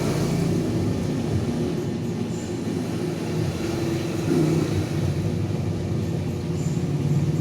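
A motor engine running steadily with a low, even rumble.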